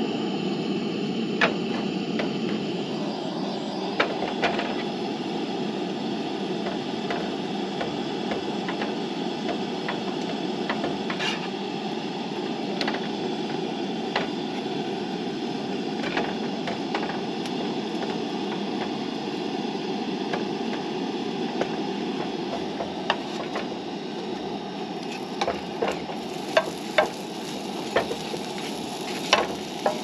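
Camp stove gas burner running with a steady rushing noise under a frying pan, as butter and then bread fry in it. Scattered clicks and taps of utensils on the pan and cutting board come more often near the end.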